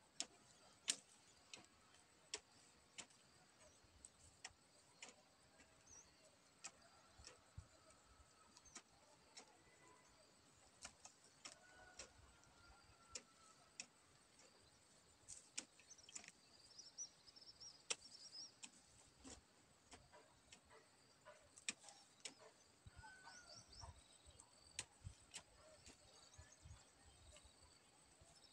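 Hoe blade striking hard dry soil, faint sharp ticks coming about one or two a second with an uneven rhythm. Faint bird chirps a little past the middle and again near the end.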